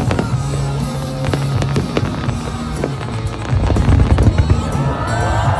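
Fireworks bursting in rapid succession, with heavier booms about three and a half seconds in, over music with a steady bass line.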